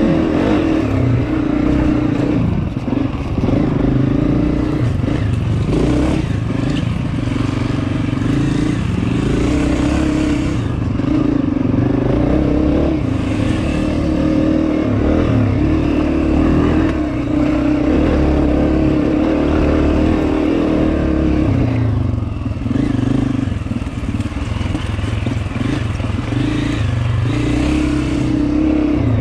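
Dirt bike engine running under changing throttle while riding a rough trail, its revs rising and falling and easing off briefly about ten seconds in and again about twenty-two seconds in.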